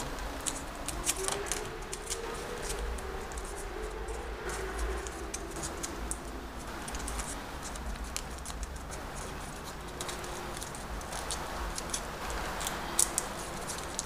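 Paper currency crinkling and crackling in the fingers as a folded dollar bill is creased and shaped, a run of small irregular crackles with a couple of sharper ones near the end.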